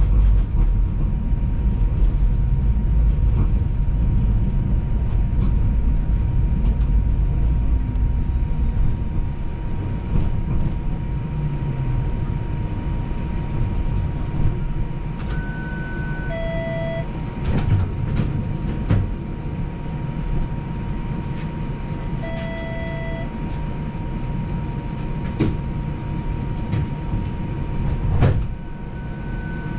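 TTC streetcar running along its tracks, heard from inside the car: a steady low rumble of wheels on rail under a faint constant whine, with scattered clicks and knocks. A few short electronic beeps sound about halfway through and again near the end.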